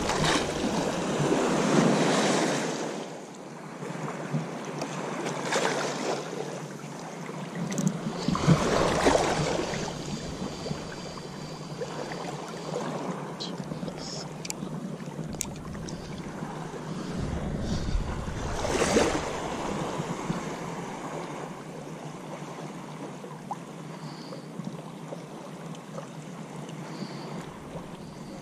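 Small sea waves washing in and splashing at the water's edge, coming in surges a few seconds apart. The biggest surges come right at the start and again around nine and nineteen seconds in.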